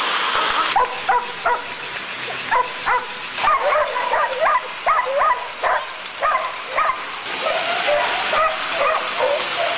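Pit bull–type dogs straining on wooden treadmills give many short, high-pitched whines and yelps in quick succession over a steady rushing noise.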